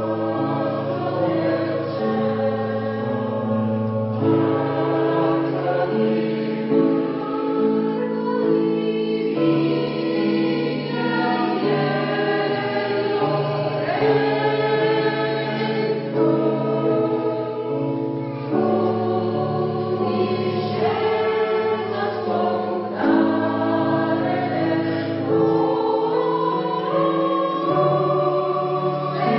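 Polyphonic choir singing a Christmas piece in several voice parts, low and high voices holding sustained chords that change every second or two.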